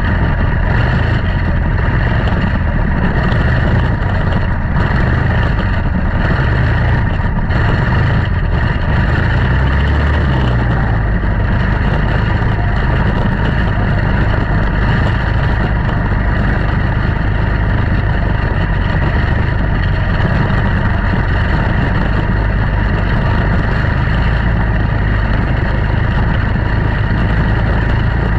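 Several quarter midget race cars' Briggs & Stratton Animal single-cylinder engines running together at racing speed, in a steady loud drone with the pitch wavering as the cars go around the track.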